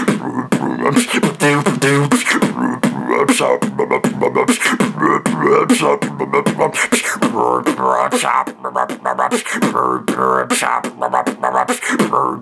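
Solo heavy-bass beatboxing: a fast, dense rhythm of sharp mouth-made snares and hi-hat clicks over a pitched, buzzing vocal bass line.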